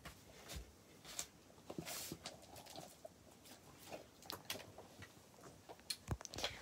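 Faint handling noise of squishy fidget toys being picked up off a paper sheet on carpet: scattered soft taps and rustles, a few at a time.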